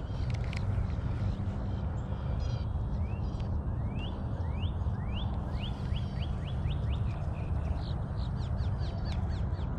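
A bird calling a run of short, rising notes that come faster and faster, over a steady low rumble.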